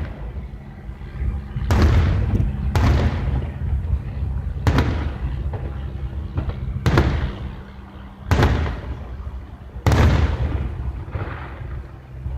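Aerial fireworks shells bursting: about six loud booms a second or two apart, each with a rumbling tail that dies away.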